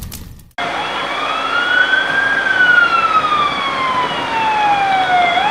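A fire truck's siren sounding a wail. It cuts in about half a second in, after a rumble fades out, then rises in pitch for about two seconds, falls slowly for about three, and starts to rise again near the end.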